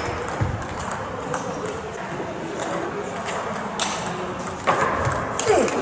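Table tennis rally: the ball clicking sharply off the bats and the table in quick succession, with a short falling squeak near the end.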